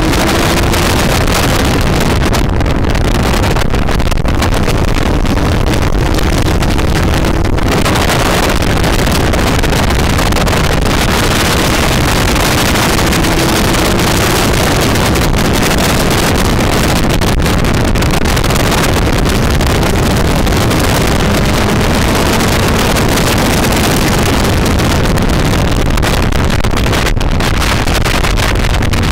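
Sport motorcycle engine ridden at speed on a track, heard through heavy wind buffeting on the microphone; the engine's pitch climbs slowly several times under the steady wind.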